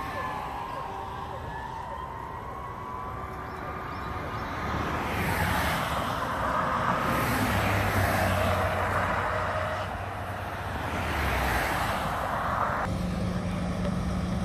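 Road traffic on a divided highway: a siren fades out in the first couple of seconds, then the tyre and engine noise of cars swells as several pass close by one after another. Near the end the sound changes abruptly to a steadier low engine hum.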